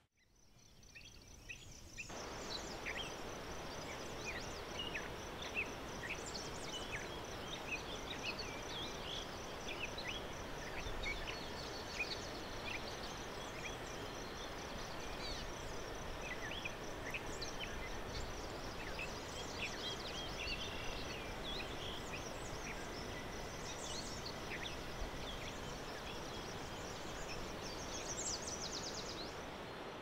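Outdoor nature ambience fading in over the first two seconds: many birds chirping over a soft, even hiss, with a thin, high, steady trill underneath and a fast trill near the end.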